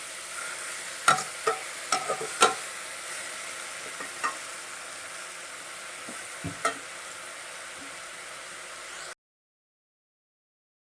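Chopped black nightshade (manathakkali) greens sizzling as they are sautéed in a pan, with a spatula knocking and scraping against the pan several times in the first few seconds and once or twice more later. The sound cuts off abruptly to dead silence near the end.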